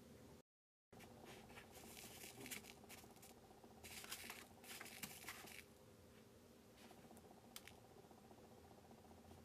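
Faint scratching and pattering of a chocolate-coated snack stick being pressed and rolled in tiny sugar-bead sprinkles in a plastic kit tray, in two bouts of a second or two each.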